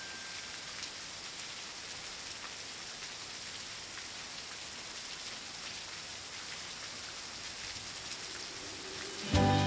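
A steady, even hiss like falling rain, with faint scattered ticks. Music comes back in near the end.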